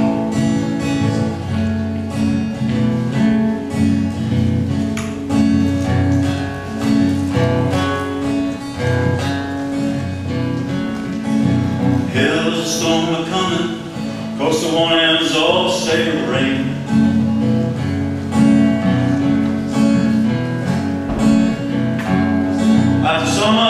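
Cutaway acoustic guitar with a capo, fingerpicked in a steady repeating pattern; a man's singing voice comes in about halfway through.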